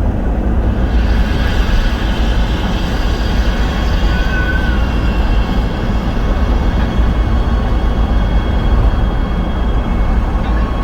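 A vehicle in motion: a steady low rumble with faint high whining tones above it.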